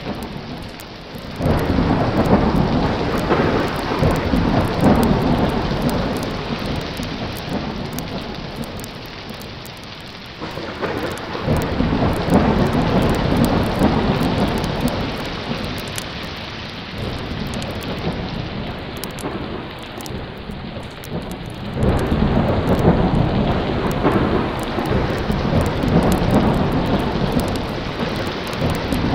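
Thunder over steady heavy rain: three long rolls, each starting suddenly about ten seconds apart and fading away over several seconds.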